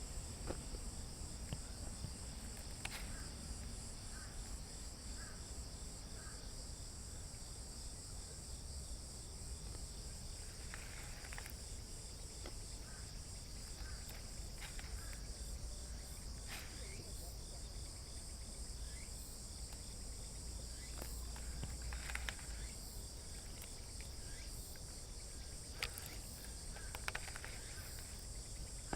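A steady high-pitched chorus of insects, with a low rumble underneath and scattered faint clicks.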